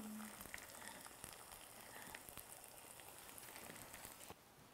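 Faint sizzling and crackling of sauce-glazed fresh shiitake mushrooms frying in oil in a pan, with a few tiny pops, cutting off suddenly near the end.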